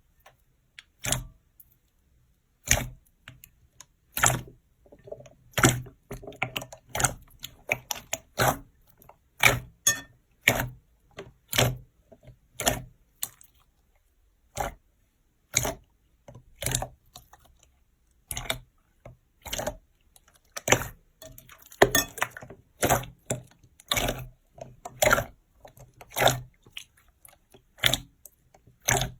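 Slime being pressed and poked by hand, giving a run of sharp pops and clicks, about one or two a second at an uneven pace.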